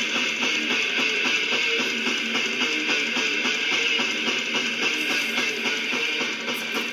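A guitar-based song playing from a vinyl record on a Philips portable record player, through its small detachable speaker, with a thin sound and no deep bass.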